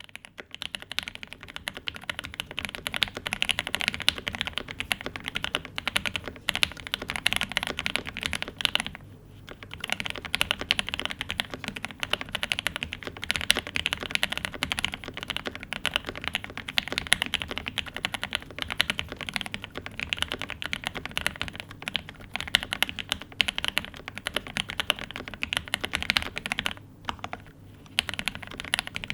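Steady fast typing on an Angry Miao Cyberboard 75% mechanical keyboard with lubed C3 Banana Split linear switches, an aluminium plate and GMK Ursa keycaps: a dense run of keystrokes, with short pauses about nine seconds in and near the end.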